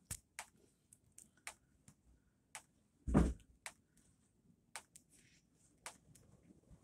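Scattered light clicks and taps, with one louder dull thump about three seconds in.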